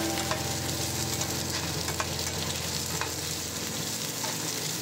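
Sliced onions and green chillies sizzling in hot oil in a nonstick frying pan while a spatula stirs them, with a few light scrapes and taps of the spatula against the pan.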